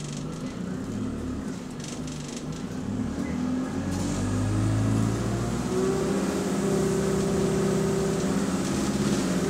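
Bus diesel engine heard from inside the saloon, pulling away. Its note grows louder about four seconds in and then holds steady as the bus accelerates.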